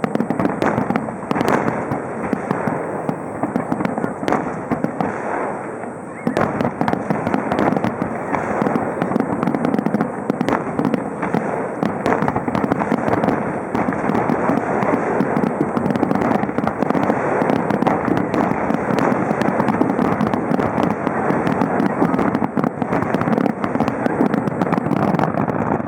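Aerial display fireworks bursting in rapid, overlapping succession, a dense barrage of bangs and crackles. It grows louder and denser about six seconds in.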